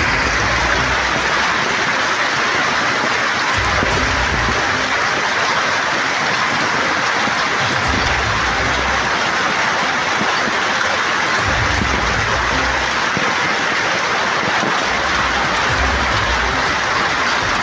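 Heavy hail pelting down in a dense, steady clatter, with a low rumble of wind on the microphone coming and going every few seconds.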